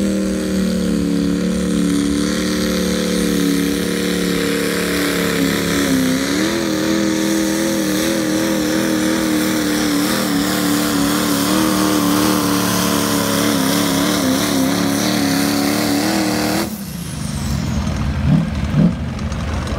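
Diesel truck engine held at high revs, a steady drone whose pitch starts to waver partway through, then cut off abruptly near the end, leaving lower noise with a couple of short rising sounds.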